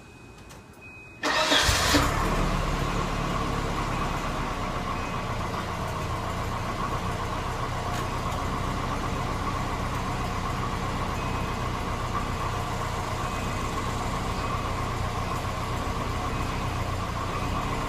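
Volvo 240 engine starting about a second in, catching quickly, then idling steadily.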